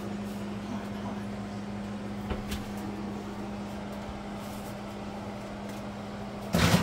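Steady low appliance hum in a small kitchen, with a couple of light knocks as a foil-covered baking pan is lifted out of the oven and set on the counter, then a sudden loud clatter near the end.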